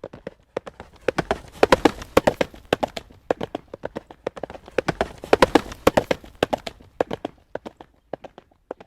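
Horse's hooves trotting on a hard road surface: a quick, steady clip-clop of sharp knocks that grows louder twice, about a second and a half in and again past the middle, then fades.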